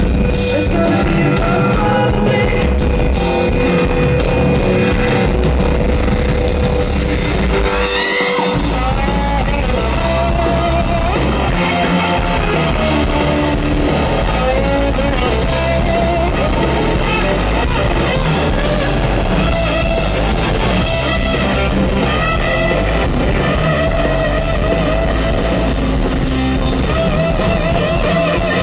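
Live rock band playing an instrumental passage, led by an electric guitar solo on a semi-hollow electric guitar over drums and bass. A note is held for the first several seconds, a quick rising slide comes about eight seconds in, and then bent, wavering lead lines follow.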